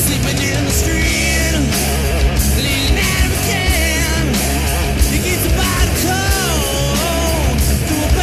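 Hard rock band demo recording with drums, electric guitar and bass, a lead part bending up and down in pitch about six seconds in.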